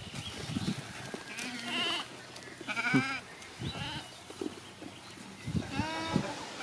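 Goats bleating: three wavering calls, the loudest about three seconds in.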